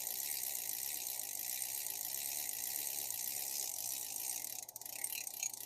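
Daiwa 1600C spinning reel being cranked by hand, its gears running with a fine, fast whirring that has a rough spot, which the owner puts down to the bushings turning inside their housings. Near the end the cranking pauses briefly and a few clicks follow.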